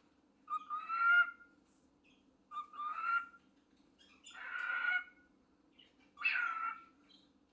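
Pet talking bird mimicking, four short calls of just under a second each with a pitch that rises and then levels out, spaced a second or so apart.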